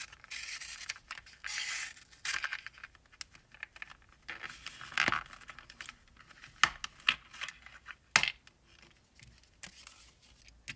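Plastic packaging of a ratchet repair kit being cut and pulled open: crinkling and tearing plastic with many scattered clicks and small taps.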